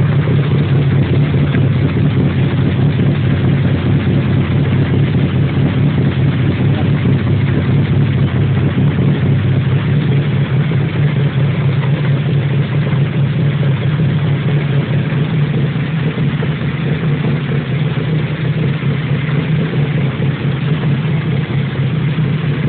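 Coupe's exhaust rumbling steadily at a constant engine speed, a deep, even drone with no revving.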